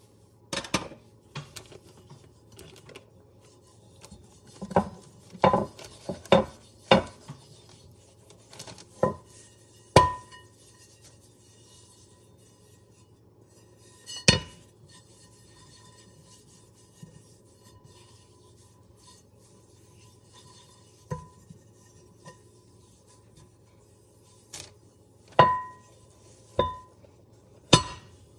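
10.25-inch Lodge cast iron skillet being handled and set down while it is oiled for seasoning: about a dozen sharp knocks and clinks in scattered groups, some ringing briefly, with quiet spells between.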